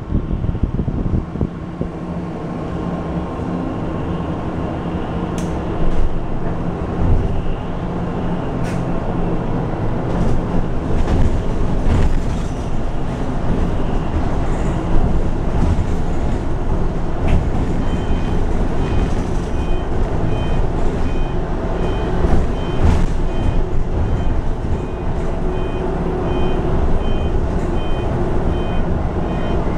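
Cabin sound of a RAC EV RACE 150 electric bus under way: steady road and tyre rumble with a low motor hum and a few sharp rattles. From a little past halfway, an electronic beep repeats about twice a second.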